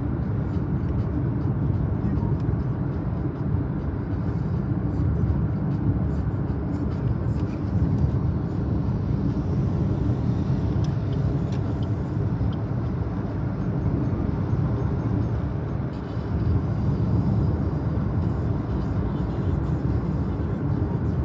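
Steady low rumble of a car's engine and tyres heard from inside the cabin while driving at speed on a paved road.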